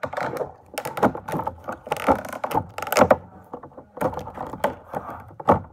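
Close handling of hard plastic toy packaging and small plastic minifigures: a rapid, irregular run of crackles, clicks and knocks as the figures are pressed out of their plastic trays.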